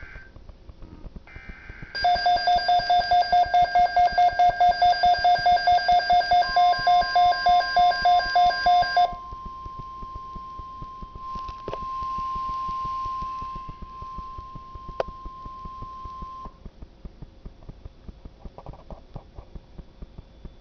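NOAA Weather Radio emergency alert: the end of the buzzy digital SAME header, then a loud alarm beeping about four times a second for some seven seconds. Partway through, the steady 1050 Hz weather warning tone comes on and holds for about ten seconds before cutting off, leaving faint radio hiss.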